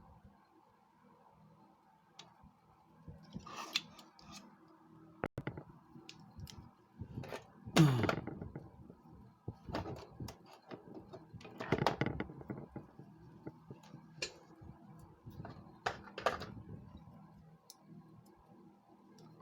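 Intermittent clicks, knocks and scrapes of tools and metal parts being handled, over a faint steady hum. A short squeal falling in pitch, about eight seconds in, is the loudest sound.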